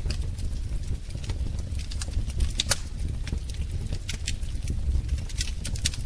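Wood fire crackling: irregular sharp pops and snaps, several a second, over a steady low rumble of the burning fire.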